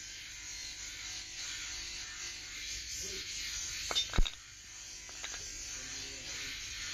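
A small electric power tool runs steadily with a high buzzing whir, as a blade smith works on an old kukri. Two sharp knocks come about four seconds in, the second the loudest sound.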